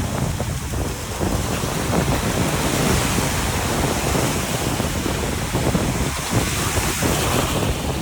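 Ocean surf washing, with wind buffeting the microphone; the hiss of the surf swells about three seconds in and eases off near the end.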